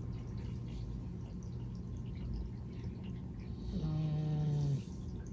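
A sleeping cat snoring: one louder snore with a steady pitch about four seconds in, lasting about a second, over a low steady hum.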